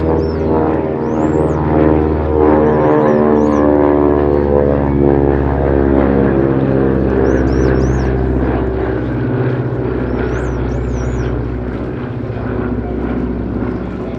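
Twin radial piston engines of a Beech 18 running steadily as it flies past, the engine note sliding down in pitch during the first few seconds as it passes.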